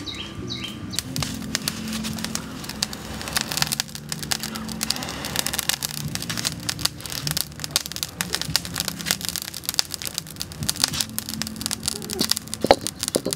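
Small wood fire crackling, with a sharp knock near the end as a wok is set down on the hearth stones.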